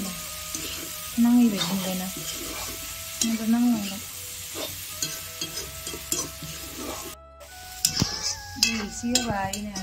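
A metal ladle scraping and stirring chicken and bamboo-shoot curry in an iron kadai, with the food sizzling throughout. Several louder scraping strokes come through, the strongest about a second in and again near the end.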